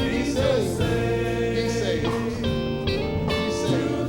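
Gospel music with singing: held instrumental chords with a few sliding notes.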